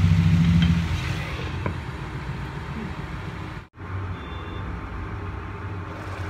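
Induction cooktop's steady low electrical hum, loudest in the first second, with a faint sizzle from the chicken cooking in the kadai and a couple of light spatula taps. The sound drops out for an instant just under four seconds in, then the hum goes on.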